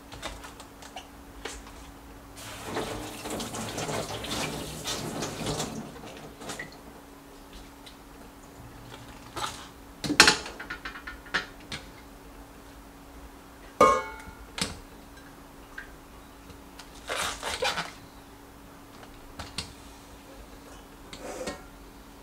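Kitchen tap running into the sink in two stretches, a longer one a few seconds in and a shorter one later, with clinks and knocks of stainless steel bowls, including one metallic knock that rings.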